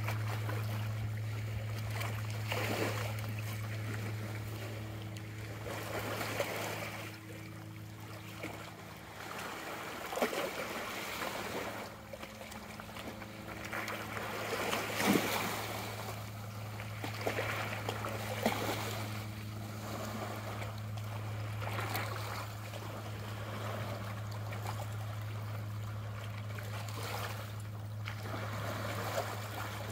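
Small bay waves lapping and washing over a rocky, pebbly shore in irregular soft surges every few seconds, over a steady low hum.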